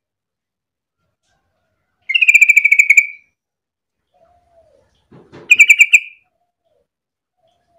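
Yellow-vented bulbul (trucukan) singing two short phrases of fast, bubbling repeated notes, each about a second long and some three seconds apart.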